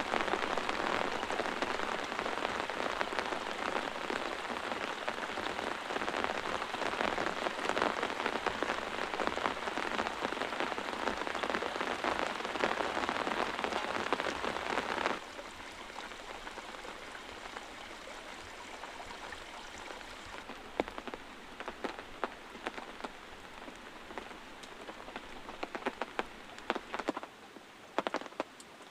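Heavy rain falling steadily. About halfway through it drops suddenly to a much quieter, lighter rain with scattered sharp ticks.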